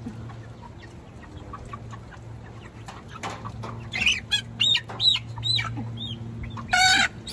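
Young chickens peeping and squawking as they are caught by hand: a run of short, arching high calls starting about four seconds in, ending with one louder squawk near the end.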